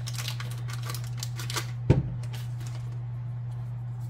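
Paper butter wrapper crinkling and rustling as a half stick of butter is peeled open by hand, with a soft thud about two seconds in as a piece of butter drops into the saucepan. A steady low hum runs underneath.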